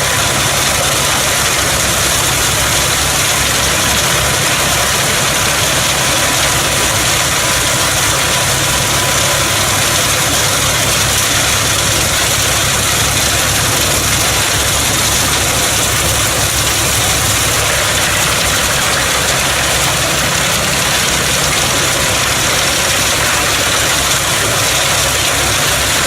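A 220 hp Fendt tractor running a PTO-driven Pezzolato PTH 700 G drum wood chipper, making a loud, steady machine noise with no break.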